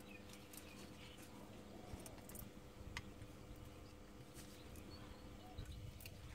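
Faint, scattered small clicks and scrapes of a small screwdriver and gloved hands working at plastic wiring plugs in an engine bay, over a faint steady hum.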